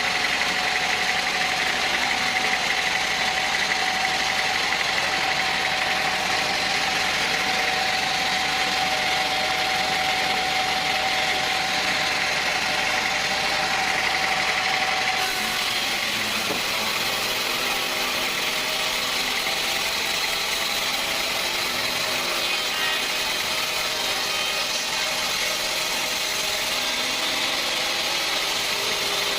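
Sawmill machinery running steadily, a continuous mechanical hum with a steady high tone. The sound changes abruptly about halfway through.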